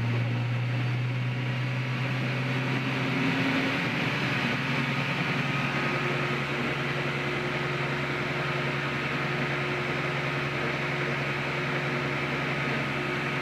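GE top-load washing machine (GTWN2800D1WW) in its spin cycle, its hum rising in pitch over the first few seconds as the drum speeds up into high-speed spin, then running steady. The freshly repaired drum bearings give no grinding, and the machine is running a lot quieter.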